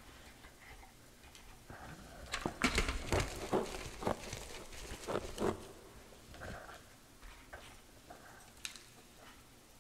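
A hand squeezing and crushing wet chalk paste mixed with crumbled gym chalk in a bowl, making crackly crunches. The crunches come thickest between about two and a half and five and a half seconds in, with lighter handling before and after.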